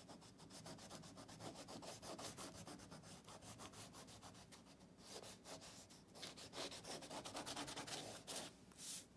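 The side of a crayon rubbed back and forth across paper in quick, even strokes, shading in a broad area of colour. Faint and scratchy, a little louder from about halfway through.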